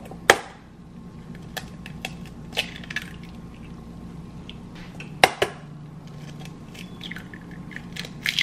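Eggs being cracked against a stainless steel mixing bowl: a sharp crack about a third of a second in, a double crack about five seconds in, and another near the end, with small clicks of shell between.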